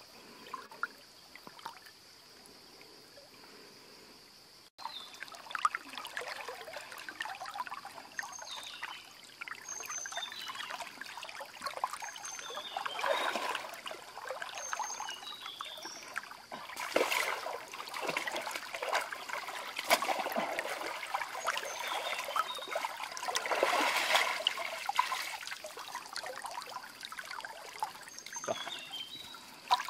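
River water splashing and trickling as a person swims and wades through a shallow river, coming in several louder surges.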